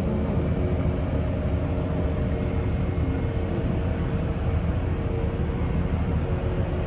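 Boat engine running steadily: a low rumble with a few steady hum tones above it.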